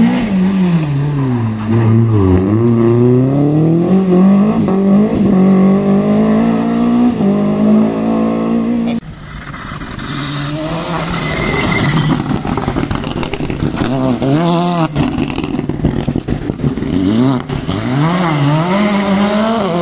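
Two rally cars at full throttle in turn, engine revs rising and dropping sharply at each gear change. A cut about nine seconds in switches to the second car, a Skoda, which lifts briefly and then climbs through the revs again.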